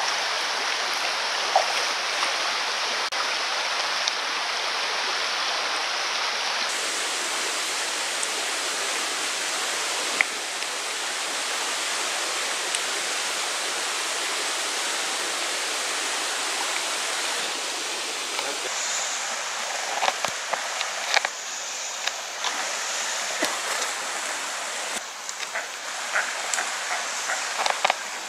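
Water of a small rocky mountain creek running steadily, with a few short clicks and taps in the last third.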